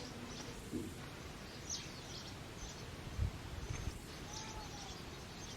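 Outdoor background noise with faint, short, high bird chirps scattered through it, a soft low thump or two about three seconds in, and a faint short whistle-like call near the end.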